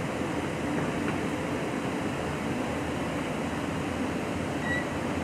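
Steady background hum and hiss of room noise, such as ventilation, with a brief high tone near the end.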